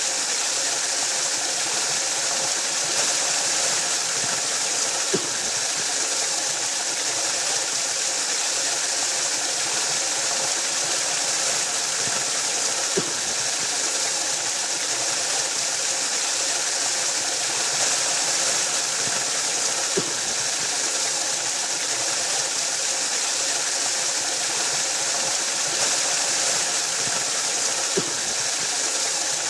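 Waterfall: a steady rush of falling water, its hiss strongest in the high end, with a short low knock about every seven to eight seconds.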